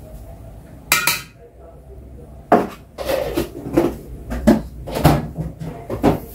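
A utensil clinking and scraping against a metal mixing bowl as margarine goes into the chapati flour: a couple of isolated knocks, then a quick irregular run of clinks in the second half.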